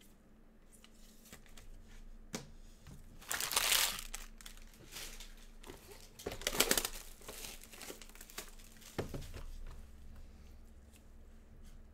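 Cellophane shrink-wrap being torn and pulled off a Topps Museum Collection card box and crumpled by gloved hands. It crinkles in two louder bursts, about three and a half and six and a half seconds in, with lighter rustling between them.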